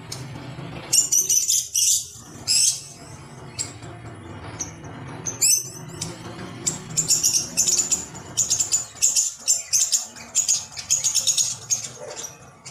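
Bird chirping in quick bursts of high twitters, coming in clusters, over a steady low hum.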